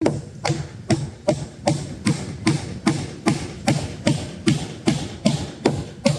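Hammer driving nails to fasten roofing sheets down, a steady run of about sixteen even blows at roughly two and a half a second.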